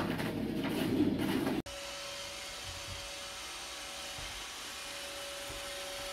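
Robot vacuum cleaner running with a steady whir and a faint steady whine. It starts about a second and a half in, right after a louder, rougher noise cuts off abruptly.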